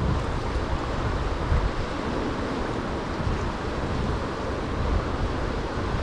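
Steady rush of river current mixed with wind buffeting the microphone in a low rumble, with no distinct events.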